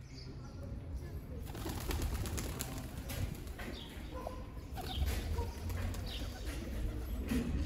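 Feral pigeons on a street: a burst of wing flapping about a second and a half in, followed by short high chirps from small birds now and then.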